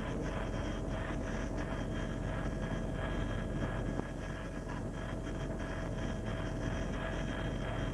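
Helicopter noise heard from inside the cabin: a steady engine and gearbox whine over the fast, even beat of the rotor blades.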